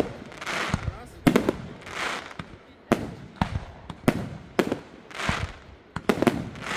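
Aerial fireworks bursting in a running display: sharp bangs at an uneven pace of one or two a second, each followed by a short fizzing tail.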